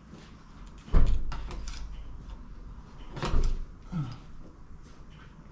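Heavy knocks with lighter clicks and clatter between them: the loudest about a second in, another a little past three seconds, the first followed by a low rumble.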